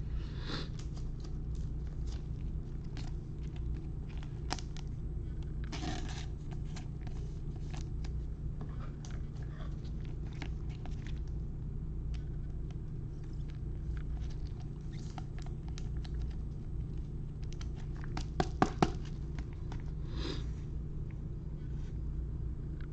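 Trading cards and a pack wrapper being handled: scattered light rustles, crinkles and clicks, with a few sharper clicks about three-quarters through, over a steady low hum.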